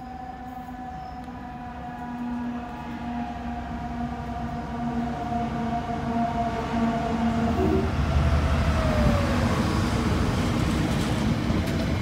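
A train approaching and passing close by. A hum of several steady tones grows louder, then drops in pitch about eight seconds in as it goes past, while a deep rumble and the noise of wheels on rails build up.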